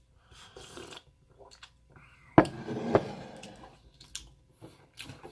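Drinking from a mug: sips and swallows. There is a sharp knock about two and a half seconds in, and a few light clicks near the end.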